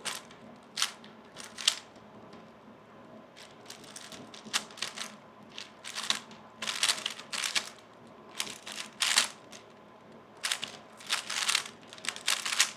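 A 3x3 speedcube being turned fast by hand: its plastic layers clicking and clacking in quick flurries of turns, with short pauses between.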